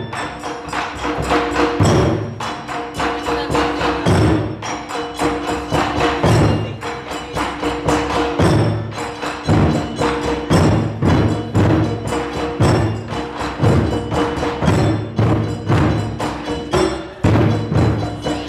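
Taiko ensemble drumming: a fast, dense rhythm of stick strikes on the drums, with deep drum hits landing in pairs about every two seconds.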